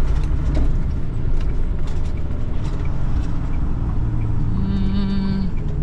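Semi truck's diesel engine running at low speed, heard from inside the cab, with scattered light rattles and clicks. About four and a half seconds in, a steady pitched tone sounds for about a second.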